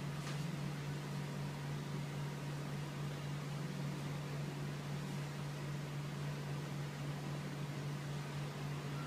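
Electric steam generator heating its water: a steady hum over an even hiss, unchanging throughout.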